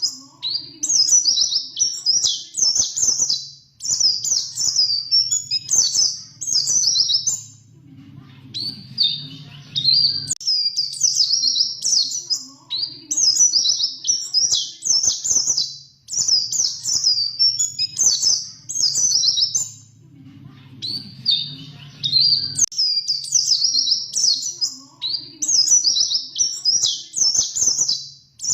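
White-eye (pleci) singing a fast, high, rolling twittering song in phrases of two to three seconds, broken by short pauses.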